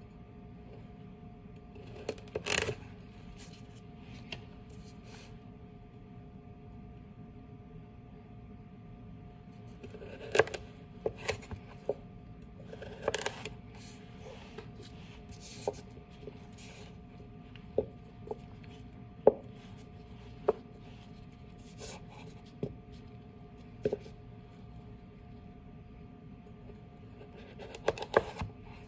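Chef's knife cutting a raw carrot on a cutting board: irregular sharp knocks of the blade meeting the board, a few seconds apart. A handful of short crunching slices through the carrot come about two seconds in, around ten and thirteen seconds, and near the end.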